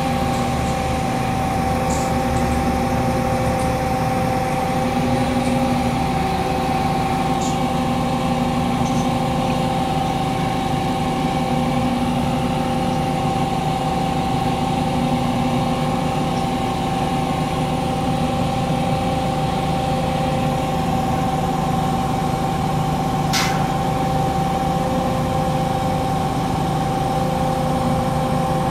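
Terex truck-mounted crane's diesel engine idling steadily, with a steady whine over the hum. A brief sharp click about 23 seconds in.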